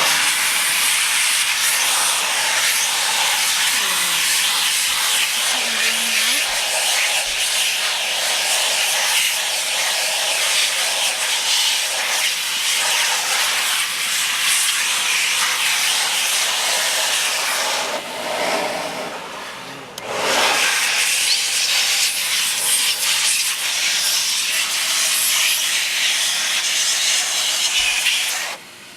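Vacuum cleaner used as a bee blower, a loud steady rush of air blasting bees out of honey boxes. It eases off and dips for a couple of seconds a little past halfway, starts up again, and is switched off just before the end.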